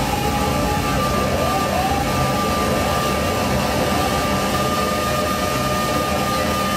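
Electronic drone and noise music played live on a table of small synthesizer and effects units: a dense, steady rumbling wash with a held high tone coming in about a second in and a short rising glide of pitch around the same moment.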